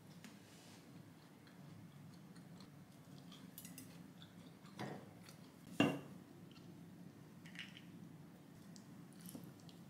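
Two light knocks of small objects being set down on a table and plate, a little before five seconds in and again, louder, about a second later, over a faint steady room hum.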